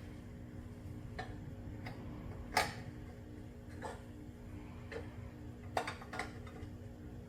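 Scattered light clicks and taps of tools and small metal mower parts being handled during repair work, the sharpest about two and a half seconds in and another pair near six seconds, over a steady low hum.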